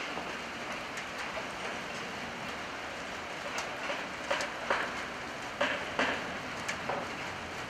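Electric-locomotive-hauled freight train rolling slowly through the yard, its wheels knocking over rail joints and points about six times in the second half, over a steady hiss.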